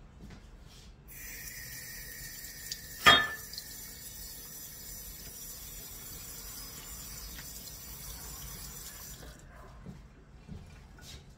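Kitchen tap running: the water is turned on about a second in, runs steadily with a hiss, and is shut off abruptly near the end. About three seconds in, a single sharp knock rings out over the water.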